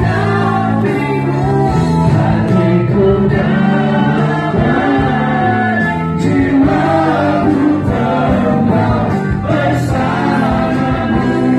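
Music with many voices singing together, like a choir.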